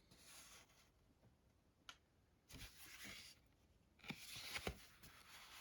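Faint rustling and handling noises of plastic coin blister packs being moved about, with a single click near two seconds in and a couple of soft knocks about four and a half seconds in.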